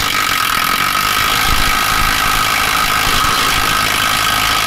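Cordless power tool with a socket running steadily, backing a 12-point 10 mm security bolt out of a Jeep transfer case, with a steady high whine over the rattle of the tool.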